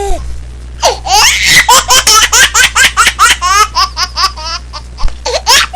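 High-pitched laughter: a long run of rapid ha-ha pulses, with another burst of laughing starting near the end.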